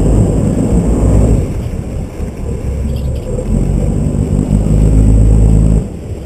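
Sportfishing boat's engine running with a loud low rumble, surging louder twice and easing off sharply near the end as the throttle is pulled back.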